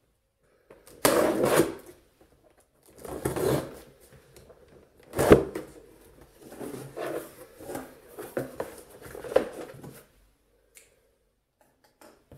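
Cardboard box being opened: tape on the lid slit and torn, then the cardboard flaps scraping and being pulled open, in a series of rasping bursts with a sharp snap about five seconds in.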